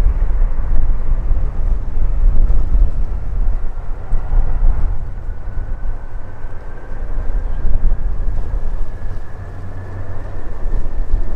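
Jet airliner engine noise: a heavy low rumble with a faint whine that slowly rises in pitch from about halfway through. Wind gusts on the microphone add to the low rumble.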